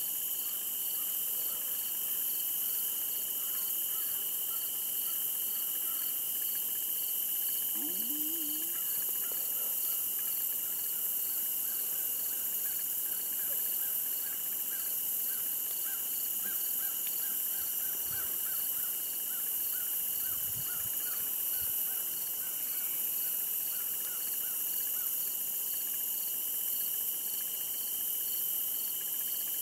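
Insects chorusing in the evening: a steady high trill and hiss, with a rhythmic chirp pulsing about two to three times a second over it.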